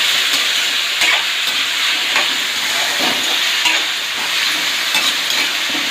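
Potato pieces and onions sizzling steadily as they fry in oil in a kadai, with a spatula stirring and scraping the pan now and then.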